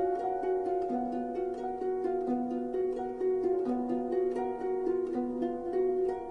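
Background music: a gentle harp-like melody of plucked notes over sustained chords.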